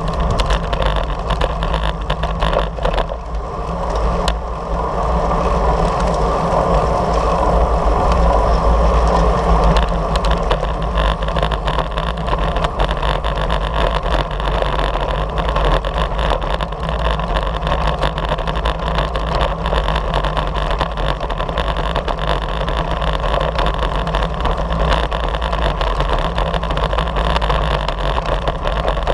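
Steady wind rush and rumble on the microphone of a bicycle-mounted camera riding at race speed, mixed with tyre noise on rough pavement and many small rattling clicks from road vibration.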